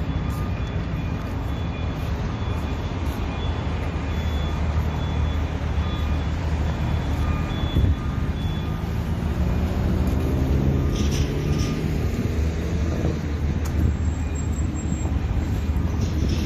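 Downtown street traffic at an intersection: a steady rumble of passing cars, with one vehicle's engine rising in pitch as it accelerates about two-thirds of the way through.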